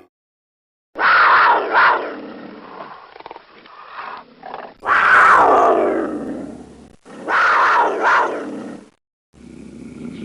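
Creature sound effects for a Texas chupacabra: three separate loud animal-like calls, each falling in pitch, with short silences between them. A steadier, lower sound begins near the end.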